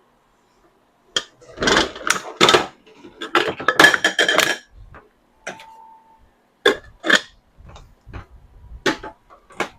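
Items being unpacked and handled: a run of knocks, clatter and rustling in the first half, then scattered clicks and taps.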